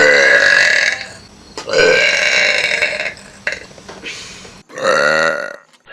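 Loud, long human burps, three in a row, each with a pitched tone that bends up and down.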